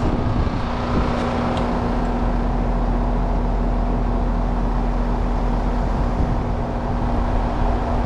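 Heat pump outdoor unit running: compressor and condenser fan giving a steady hum, with a little bit of a rattle from the compressor, which may be damage from the unit having run in heat mode with a starved condenser coil.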